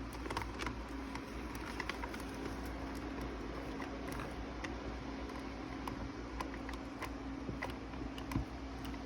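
Small scattered clicks and taps of hands handling the plastic parts and mechanism of an animated Santa figure under repair, over a steady low hum.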